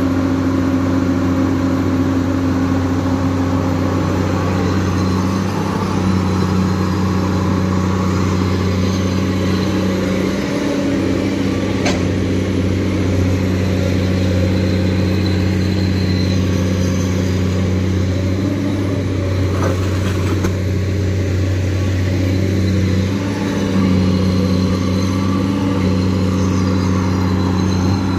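Komatsu PC210 hydraulic excavator's diesel engine running steadily under work, close by. Two sharp cracks cut through it, about twelve and twenty seconds in.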